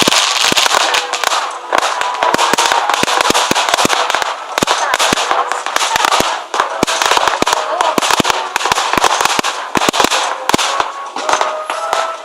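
Fireworks display: a dense, rapid string of bangs over continuous crackling, several shots a second, thinning out near the end.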